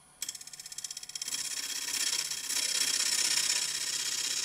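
Steel box scraper cutting the inside recess of a dry wood canister blank spinning on a lathe, truing it up. It starts as rapid ticking, about ten a second, and after about a second settles into a continuous high scraping hiss.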